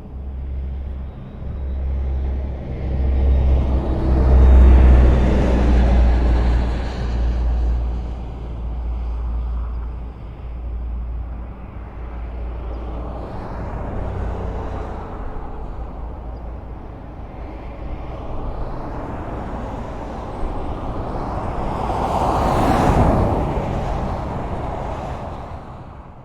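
Highway traffic: motor vehicles passing with a steady low engine rumble, loudest as one goes by about five seconds in and another passes close about twenty-three seconds in. The sound fades out near the end.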